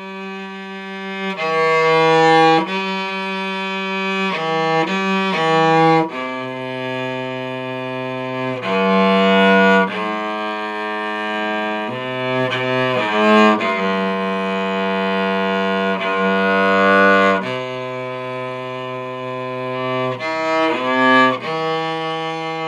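A half-size cello bowed solo, playing a slow melody in long held notes that change every second or few seconds, with a full, ringing tone.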